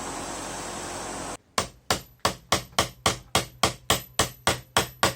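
Hand hammer blows in a quick, even rhythm of about three to four strikes a second. They begin about a second and a half in, right after a steady hiss cuts off.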